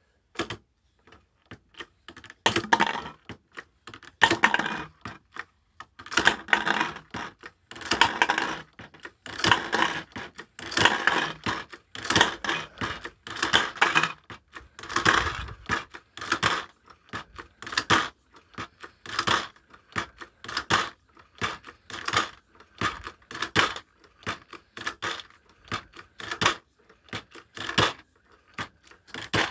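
Lee APP press cycled by hand, about twenty strokes roughly a second and a half apart, each a short clatter of metal clicks as a powder-coated .45 bullet is fed from the tube, pushed through the Lee .452 sizing die and dropped into a plastic jar.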